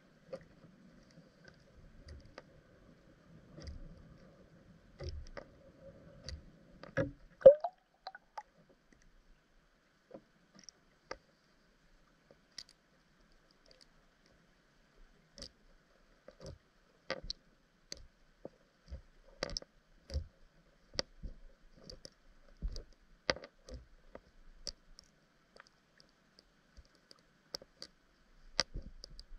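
Scattered sharp clicks and ticks picked up underwater, irregular at about one to two a second. A faint low hum runs under the first few seconds, and a louder knock with a brief rising squeak comes about seven seconds in.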